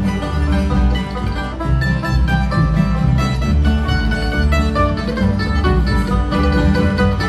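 Bluegrass string band playing an instrumental break with no singing: picked banjo and acoustic guitar over an upright bass line.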